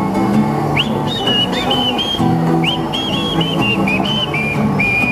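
Acoustic guitar strumming chords, with a high whistled tune over it: short notes that slide up into pitch, starting about a second in, then a long held note near the end.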